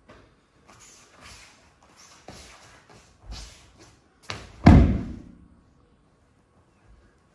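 Judo throw landing: a few soft scuffs of feet and jackets on the mats, then a little past halfway one loud, deep thud with a short ringing tail as the thrown partner hits the foam mats in a breakfall.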